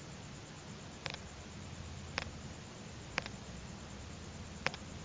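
Plastic beads on nylon thread clicking against each other as the beadwork is handled while a knot is pulled tight: four short, sharp clicks about a second apart, two of them doubled.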